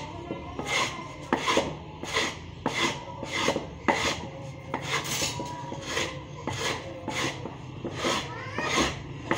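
Wood being sanded by hand in quick back-and-forth strokes, about two strokes a second, each one a short dry rasp.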